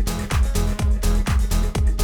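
Background electronic dance music with a steady kick drum, about two beats a second, over a sustained bassline.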